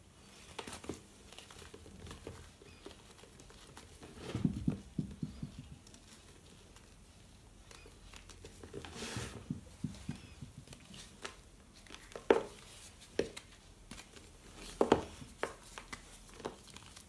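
Reformed gym chalk being broken and crumbled by hand: dry, irregular crunching and crackling as fragments are crushed and drop into loose chalk powder, with several sharp snaps as chunks break off, the loudest in the second half.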